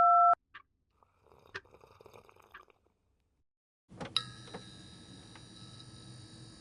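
A short, loud phone beep from a voicemail system, followed by faint rustling and a few clicks. After a pause of about a second, a steady quiet hum with a high whine sets in about four seconds in.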